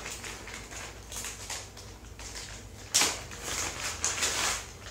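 Clear plastic packaging bag crinkling and rustling in the hands as a strap is taken out of it, with a sharp crackle about three seconds in and a further stretch of crinkling after it.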